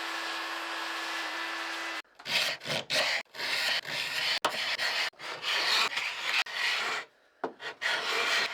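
A steady whirring noise with a low hum for about two seconds, cut off abruptly. Then repeated irregular rubbing and rasping strokes of a hand tool or abrasive worked over wood, as in sanding or filing during stripping.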